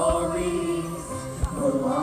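Fireworks show soundtrack: music with a choir singing, and two short low thumps from fireworks, one right at the start and one about a second and a half in.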